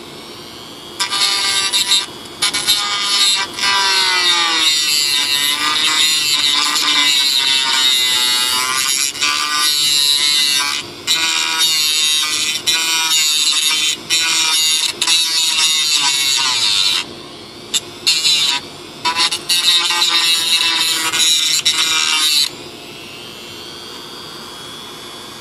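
Handheld rotary tool with a small sanding disc sanding plywood inside a fibreglass glider fuselage. It runs with a high whine that dips and rises as the disc bears on the wood, stops briefly a few times (a longer pause a little past the middle), and cuts off a few seconds before the end.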